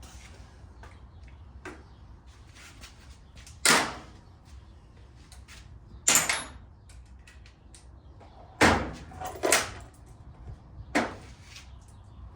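Five sharp knocks and clanks of tools and metal parts being handled during ATV reassembly, spaced a second or two apart, each ringing briefly; the loudest comes a little past the middle, over a faint low hum.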